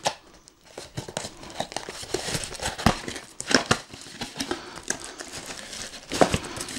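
Cardboard packaging handled as a box is unpacked by hand: flaps and inserts pulled apart with irregular crinkling, crackling and scraping, and a sharp click at the very start.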